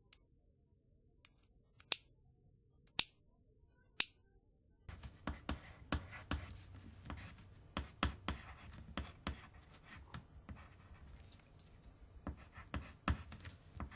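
Three sharp clicks about a second apart as a box cutter's blade is pushed out notch by notch. From about five seconds in, a pencil scratches on paper in quick, uneven strokes as someone writes.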